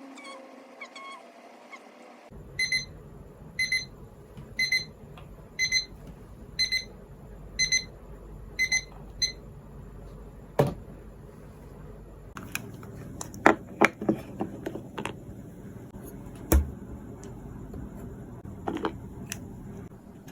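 Electronic alarm beeping in quick double beeps about once a second for around seven seconds, then stopping. Scattered clicks and knocks of handling follow.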